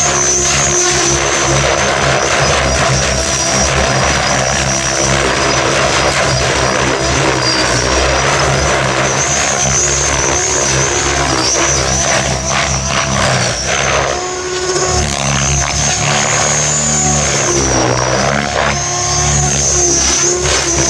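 Mikado Logo 700 electric RC helicopter in flight: the motor and rotor blades run loudly with a steady high whine, and the blade noise swings up and down in pitch as it is thrown through aerobatic manoeuvres, dipping briefly about two-thirds of the way through.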